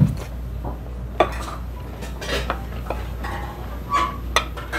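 Small ceramic sushi plates and chopsticks clinking against each other: a few sharp clinks, with a steady low hum underneath.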